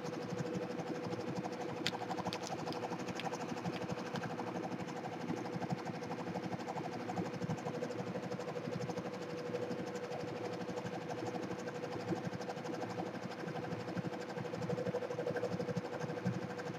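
Avancé 1504 four-head commercial embroidery machine sewing: a fast, even stitching rhythm over a steady hum.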